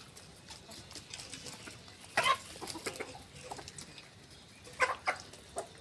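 Desi chickens clucking: a few short, separate calls, the loudest about two seconds in and another cluster near the end.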